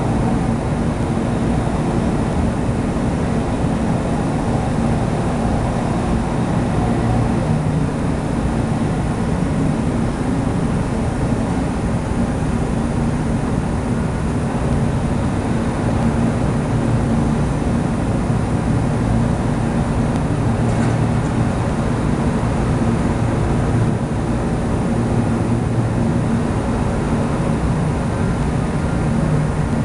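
Lawnmower engine running steadily, a loud continuous drone that swells and eases slightly.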